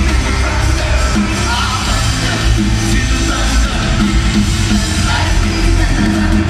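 Rock band playing live through a concert PA, heard loud from the audience in a large arena hall.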